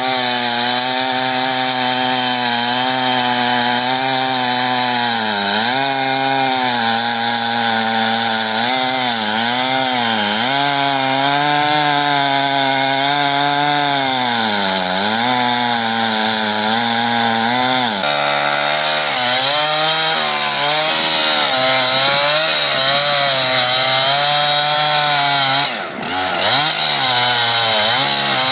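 Two-stroke chainsaw cutting into wood at full throttle. The engine note sags again and again as the chain bogs under load and picks back up. Near the end it briefly drops away and revs back up.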